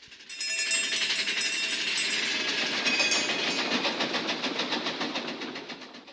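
Big Thunder Mountain mine train cars rattling past on their track in a fast, even clatter. The clatter comes in sharply just after the start and fades away near the end.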